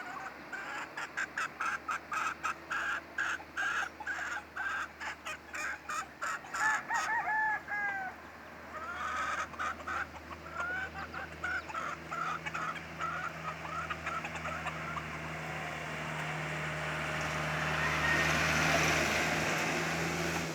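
Birds calling in rapid runs of short, repeated calls, with a gap of about a second around eight seconds in. A steady low hum runs underneath, and near the end a broad rush of noise swells and then eases off.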